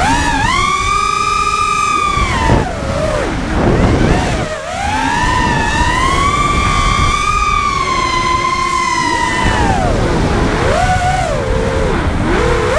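Racing quadcopter's brushless motors spinning 5-inch DAL T5045 tri-blade propellers, heard from an onboard GoPro: a high whine held steady for about two seconds, dipping and wavering in pitch, then held high again for about four seconds before it falls away, with short rises and falls in pitch near the end as the throttle is worked.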